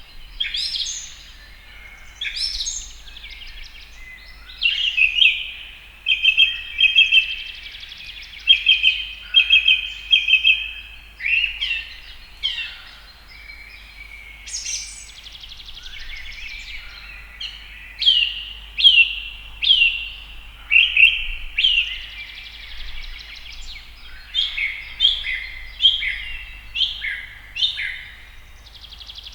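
House sparrows chirping: short, sharp chirps repeated one after another, some in quick runs of several notes.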